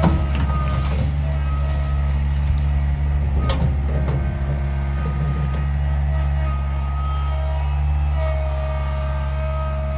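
John Deere 24A skid steer engine running steadily while the machine works, with a whine that comes and goes over it. Brush and wood crack sharply at the start and again about three and a half seconds in.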